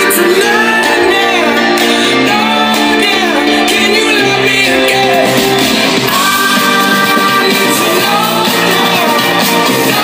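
A song with a singing voice playing loud through a JBL Pulse Bluetooth speaker.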